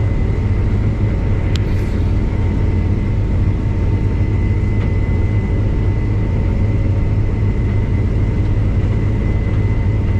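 Case combine harvester running steadily: a low, even machine drone with a constant high whine running through it.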